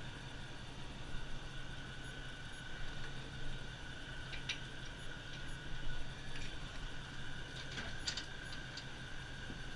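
A vehicle engine running steadily at low revs, with scattered light clicks and rattles.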